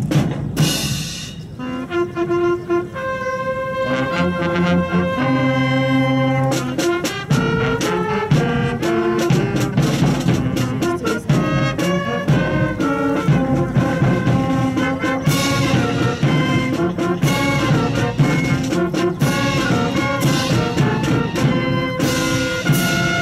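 Brass band music playing a melody, with trumpets and trombones over drums.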